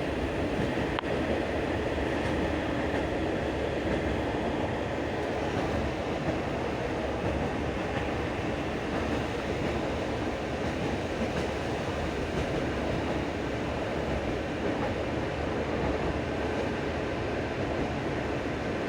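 Passenger train running on jointed rail track, heard from inside the carriage: a steady rumble and rattle of the wheels and car body.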